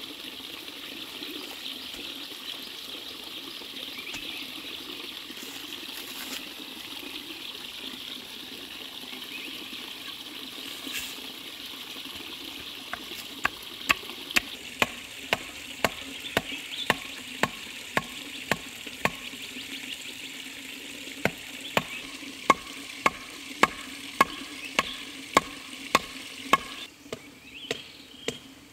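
A wooden stake being driven into the ground with a wooden club: a run of sharp wood-on-wood knocks, about two a second, starting about halfway through, with a short pause, then continuing. Under it, the steady hiss of the stream.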